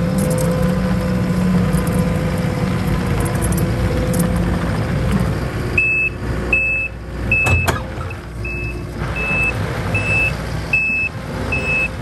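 Takeuchi TL12R2 compact track loader's diesel engine running hard as the lift arms raise the bucket. About six seconds in its backup alarm starts, a high beep roughly every three-quarters of a second, with a single sharp knock shortly after the beeping begins.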